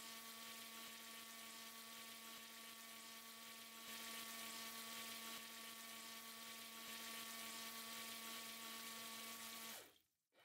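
Car windscreen washer nozzle spraying a fine mist: a steady, quiet hiss with the even hum of the small electric washer pump. It cuts off shortly before the end.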